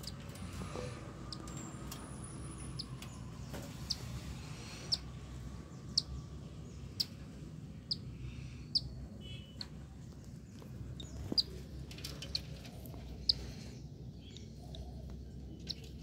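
Newly hatched cockatiel chick peeping: short, high chirps about once a second over a steady low hum.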